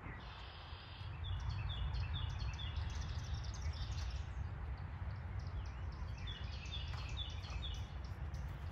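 A songbird singing two runs of short, quickly repeated chirps, one starting about a second in and another near the end, over a steady low rumble.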